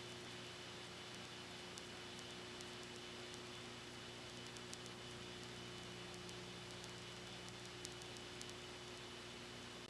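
Steady hiss and low hum with a few faint clicks: recording noise only, with no performance sound heard.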